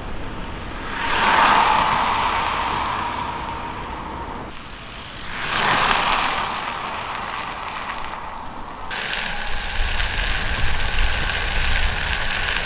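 Electric skateboard on 127 mm airless TPU wheels rolling past twice, its wheel noise swelling and fading each time, then a steady rolling rumble and hiss heard from on the moving board from about nine seconds in.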